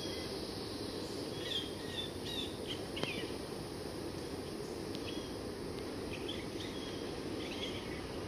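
Small birds chirping in short bursts, twice, over a steady low outdoor background hum, with one faint click in the middle.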